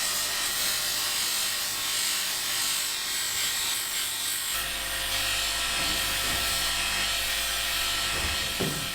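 A small electric power tool's motor running steadily, with a deeper hum joining about halfway through.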